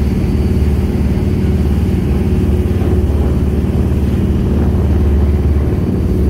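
Jet boat's engine running steadily under way: a constant low drone.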